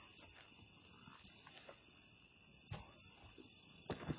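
Work boots stepping on a dirt trail with dry leaves, a few soft steps with the loudest ones near the end, over a steady high chorus of insects.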